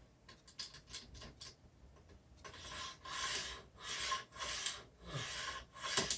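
A stop block being worked back and forth on a T-track fence: a few light clicks, then from about two and a half seconds in a run of scraping strokes, about two a second, with a sharp knock near the end. The block is catching on something as it moves, which turns out to be a hole lower down.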